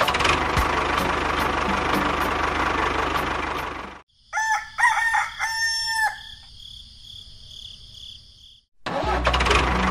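A rooster crows once, about four seconds in, after a steady rushing noise cuts off abruptly. Steady high tones sound beneath and after the crow, and a low engine-like rumble starts near the end.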